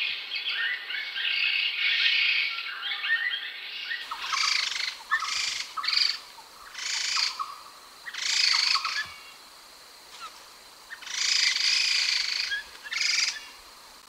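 Laughingthrush (khướu đầu xám, also called khướu đất) calling. A dense run of quick warbled notes for about four seconds, then a string of separate short phrases with pauses between them, the longest a little after the middle.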